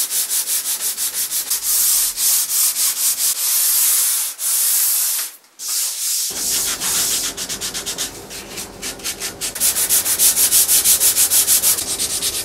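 Hand sanding of wood with a sanding block: rhythmic back-and-forth rasping strokes with a brief pause about halfway, then faster strokes of a few a second.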